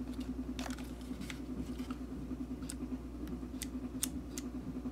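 Steady hum of a house fan running on a lower speed, with a handful of sharp plastic clicks from handling a clamp meter: the jaw closing around the cord and the rotary selector being switched on, the loudest click about four seconds in.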